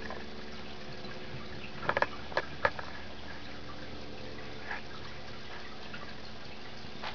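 Aquarium filter running with a steady hum and trickling water, with a few sharp clicks about two seconds in.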